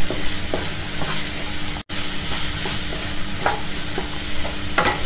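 Onion, tomato and spice masala sizzling in oil in a non-stick pan while a wooden spatula stirs and scrapes it in short, irregular strokes, sautéing the masala down to a paste. The sound drops out for an instant about two seconds in.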